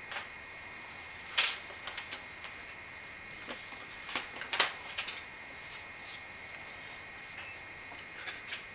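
A few scattered small clicks and knocks, the sharpest about one and a half seconds in, over a faint steady high-pitched hum.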